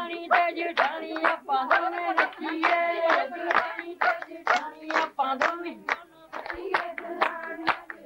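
Women singing Punjabi boliyan for giddha, with hand-clapping keeping a quick, steady rhythm under the song.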